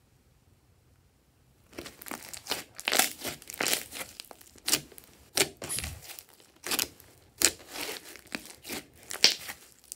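Thick purple slime mixed with small beads, squeezed and stretched by hand, gives irregular sticky crackles and pops. They start about two seconds in, after a near-silent opening.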